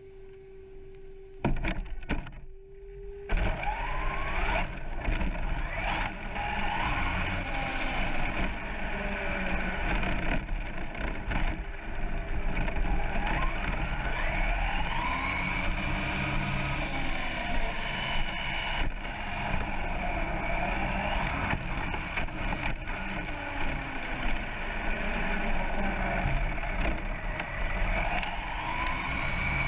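Onboard sound of a brushless 1/10 RC short course truck (Turnigy Trooper SCT 4x4). A few sharp knocks come about a second and a half in, then steady tyre and chassis noise on rough tarmac, with the electric motor's whine rising and falling with the throttle.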